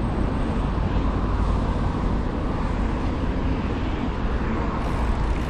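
Steady rumble and rush of a moving vehicle, with road and wind noise on the microphone.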